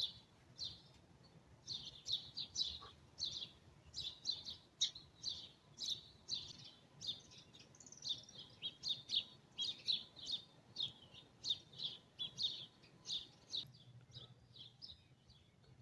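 Songbirds chirping: a steady run of short, high chirps, about two a second, thinning out near the end.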